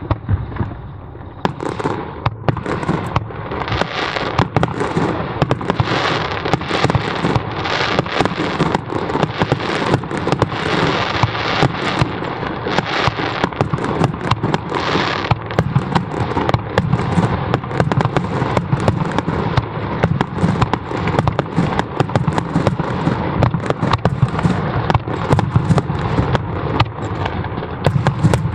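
Aerial fireworks going off in a rapid, dense barrage: launches and shell bursts follow one another closely with crackling in between. The barrage picks up about a second and a half in, after a brief lull.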